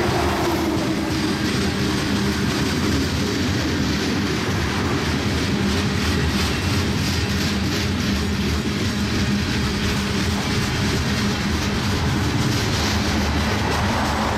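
Coal train's hopper cars rolling past: a steady rumble of steel wheels on the rails.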